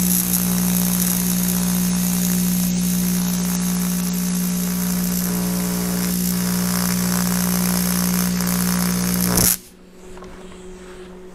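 AC TIG welding arc on cast aluminum, run from an AC buzz-box welder with a high-frequency box: a steady buzz with a hiss over it, cutting off suddenly about nine and a half seconds in.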